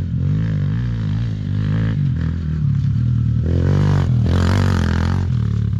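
Four-stroke dirt bike engine running and being revved, with the revs rising and falling and climbing a little past the middle.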